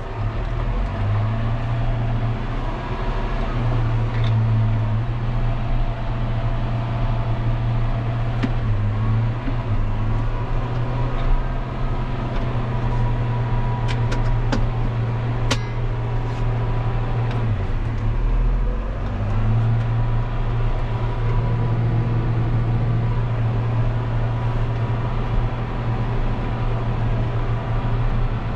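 John Deere 6140M tractor engine running steadily under load while pulling a duck-foot field cultivator, heard from inside the cab as a continuous low drone. A few faint clicks come about halfway through.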